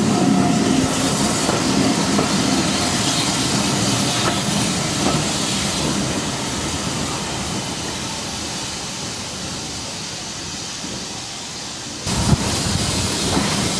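Steam-hauled passenger coach running along the track, its wheels clicking and rumbling on the rails, growing gradually quieter as the train slows through the station. About twelve seconds in a sudden, louder hiss cuts in, like steam blowing off.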